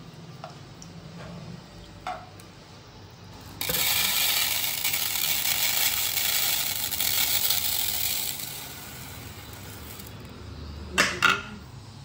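Dry split moong dal poured onto a hard plate: a dense, grainy clatter of many small grains landing, lasting about four and a half seconds. Two sharp knocks follow near the end.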